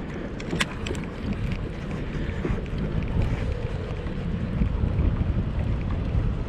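Wind buffeting the microphone on a slowly moving fishing boat: a steady low rumble with a faint even hum underneath and a few light clicks about half a second in.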